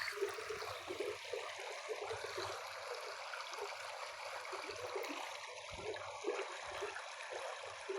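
Stream water flowing over stones: a steady, soft rush with small trickles and splashes.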